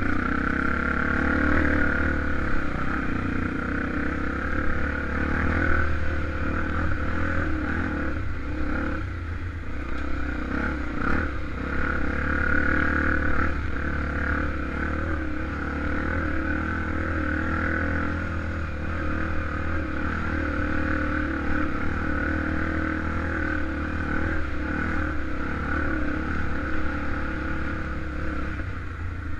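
Honda XR250 Tornado's single-cylinder four-stroke engine running steadily, the revs rising and falling a little.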